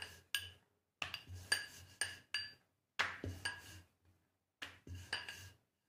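Wooden rolling pin rolling out paratha dough on a round board: a series of sharp clacks and knocks as the pin rocks and strikes the board, each ringing briefly, with short pauses while the dough is turned.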